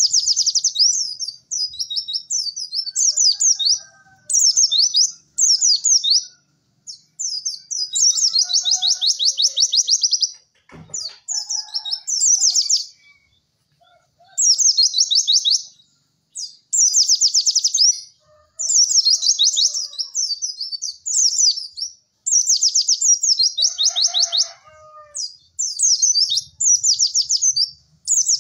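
White-eye (pleci) singing in fast, high, trilling phrases of one to two seconds each, repeated with short pauses between them.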